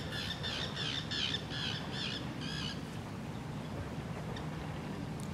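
A bird giving a run of harsh, squawking calls, about three a second, that stops just under three seconds in, over a steady outdoor rush.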